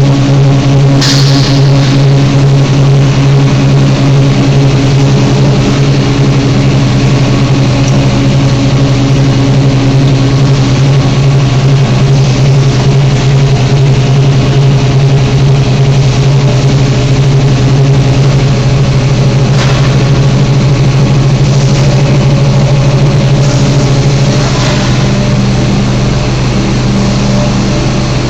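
Roller hearth furnace machinery running: a loud, steady low hum with a noisy wash over it and a few brief knocks, about a second in, then twice near the end.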